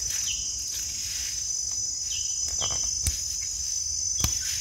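Steady high-pitched insect drone, with two short clicks about three and four seconds in.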